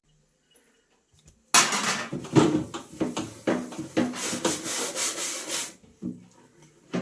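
Scrubbing on a hard surface: a run of quick, noisy rubbing strokes that starts about a second and a half in and stops near the end.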